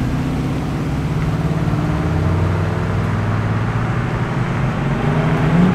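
HSV Maloo ute's V8 running as it drives away, a steady low exhaust note through quad pipes that rises slightly in pitch near the end.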